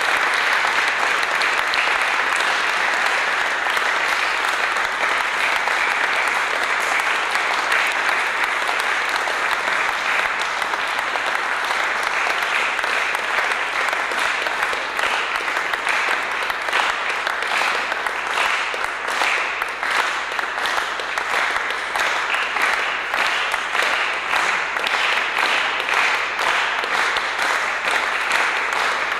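Audience applauding steadily in a reverberant hall, the individual claps standing out more clearly in the second half.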